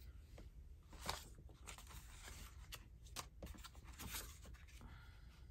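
Quiet handling of paper: scattered soft rustles and light taps as sheets and pages are moved and placed.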